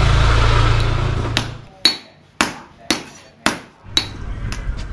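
A motorbike engine rumbles past and fades out after about a second and a half. Then a hammer strikes metal in a steady run of about two blows a second, each blow ringing briefly, with a few lighter taps near the end.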